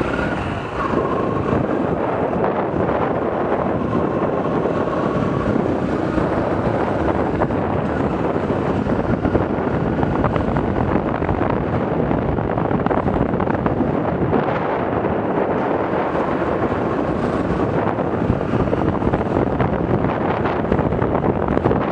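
Steady wind rush buffeting the microphone of a Yamaha YBR 125 rider on the move, with the bike's small single-cylinder engine faintly audible beneath it.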